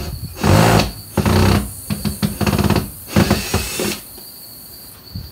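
Hart cordless drill-driver running in a run of about five short bursts as it backs screws out of old window trim, stopping about four seconds in.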